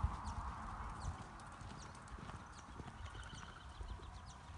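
Hoofbeats of a horse galloping away across a sand arena, thudding and growing fainter as it goes.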